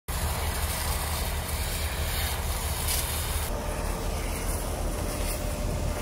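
Fire engines running steadily at a fire scene, a continuous low rumble; from about halfway through a brighter hiss joins it.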